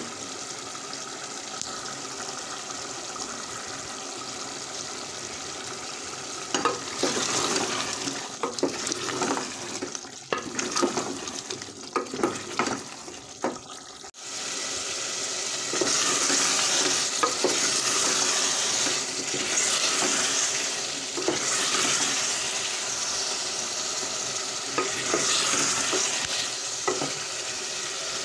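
Chicken curry with whole onions sizzling in a metal pot, stirred with a wooden spatula. Irregular scraping strokes of the stirring come from about six seconds in. After a sudden break about halfway, the sizzling is louder and swells now and then.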